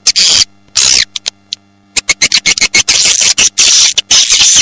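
Edible-nest swiftlets chattering: rapid, high buzzy chirrs in bursts, a pause of under a second after the first second, then dense continuous chattering, over a faint steady low hum. It is a swiftlet lure recording ('suara tarik') of the kind played to draw swiftlets into a nesting house.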